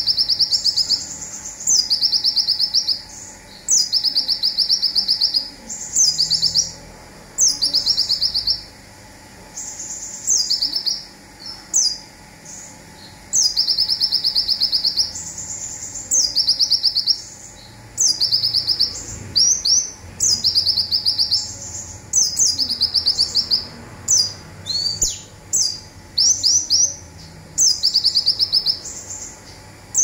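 A konin sunbird singing its 'zipper' song over and over. Each phrase starts with a high falling note and runs into a fast, buzzy rattling trill about a second long, and the phrases come roughly every two seconds. A stretch of shorter, choppier notes comes about two-thirds of the way in.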